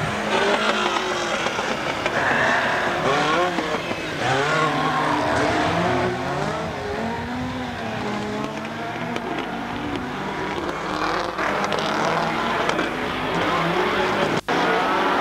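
Several rallycross cars' engines revving hard at once, each tone climbing and dropping in pitch through gear changes and lifts as the cars race through a corner. The sound breaks off briefly near the end.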